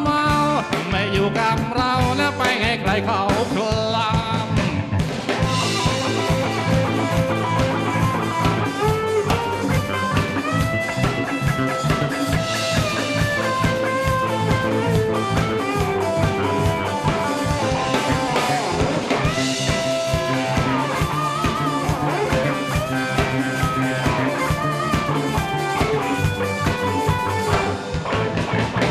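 Live rock band playing an instrumental break: an electric guitar plays long, bending lead lines over a drum kit and bass guitar.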